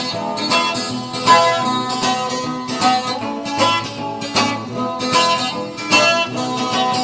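Music: an instrumental passage of plucked guitar notes.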